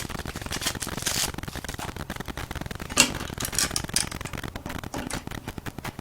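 Small hard clicks and light rattling from hands handling the new screws and faucet parts, with a sharper click about three seconds in.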